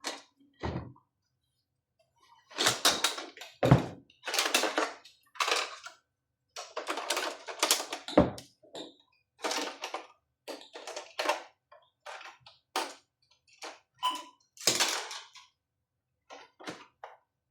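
Tools clicking, scraping and knocking against the hard plastic housing of a Mindray T5 patient monitor as it is pried open and its stuck screws are worked out: a long series of short, irregular clicks and clatters with brief pauses between them.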